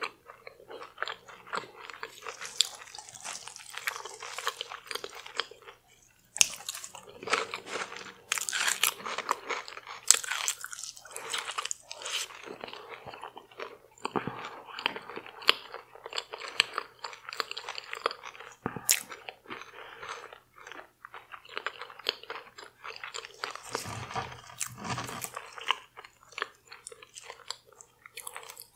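Close-miked chewing and crunching of a deep-fried, Doritos-crusted seafood boil: steady wet crackles and bites, with a short pause about six seconds in.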